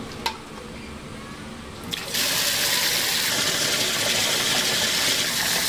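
Water rushing in a large stockpot: a steady, loud hiss that starts suddenly about two seconds in and cuts off abruptly, after a quieter stretch with a single click.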